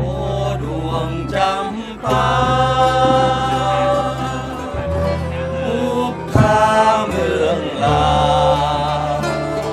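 Isan folk ensemble playing: plucked lutes and acoustic guitars over steady bass notes, with a wavering, vibrato-laden melody line rising and falling in long phrases.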